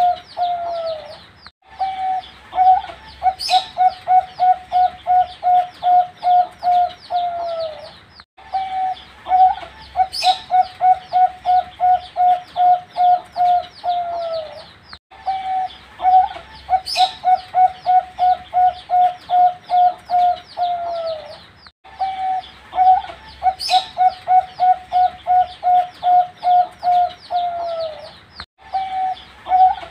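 Young perkutut (zebra dove) cooing: a phrase of quick, even notes, about four a second, that ends in a falling note, repeated about every seven seconds after a short pause. A brief high chirp sounds once in each phrase.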